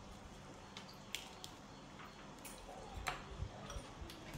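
Quiet eating sounds: a few light, scattered clicks of wooden chopsticks against a ceramic rice bowl.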